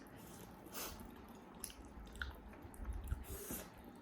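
Faint chewing and wet mouth sounds of a person eating, with a few small clicks.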